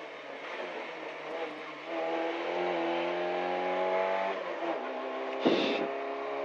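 Fiat 127 Group 2 rally car's 903 cc four-cylinder engine heard from inside the cabin, pulling hard under acceleration from about two seconds in. The note breaks about four and a half seconds in, and a brief sharp noise comes about five and a half seconds in before the engine settles back to a steady note.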